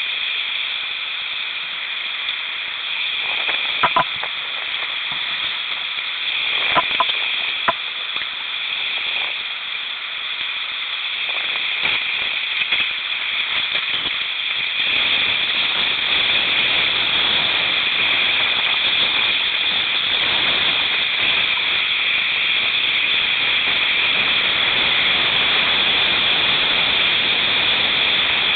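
Creek rapids rushing steadily around a kayak, with a few sharp knocks about four and seven seconds in. The rush grows fuller and a little louder about halfway through.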